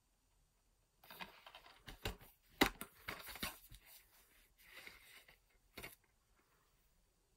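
A plastic DVD case being handled and opened: irregular rustling and scraping with several sharp plastic clicks, the loudest about two and a half seconds in.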